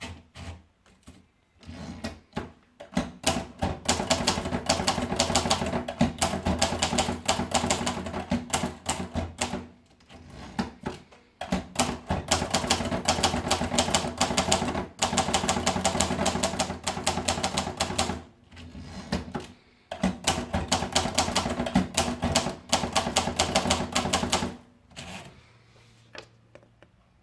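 Olivetti Studio 42 manual typewriter being typed on: rapid key strikes in several long runs with short breaks between them, stopping near the end.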